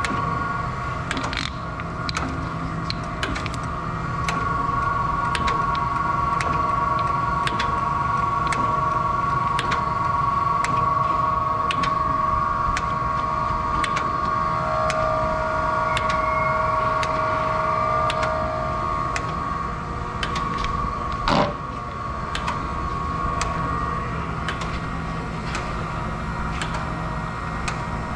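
Acer AGS-1224AHD hydraulic surface grinder running: a steady hum with several held whining tones and light clicks throughout. There is one short sharp sound about 21 seconds in, and the highest tone stops a few seconds later.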